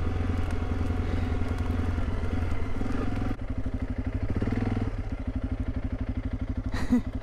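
Honda CRF300 Rally's single-cylinder four-stroke engine running at low speed, eased down to a pulsing idle-like beat about three seconds in. A short pitched blip near the end.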